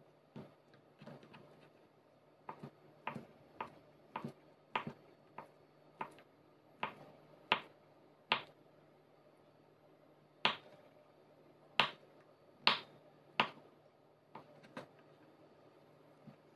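Kitchen knife cutting down through a block of surimi crab sticks and knocking on a wooden cutting board: about twenty short, sharp taps at an uneven pace, pausing for about two seconds midway.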